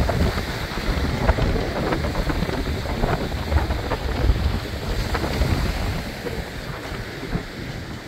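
Wind gusting across a phone's microphone, a dense low rushing noise, with the sea on the shore faintly underneath. The gusts ease somewhat near the end.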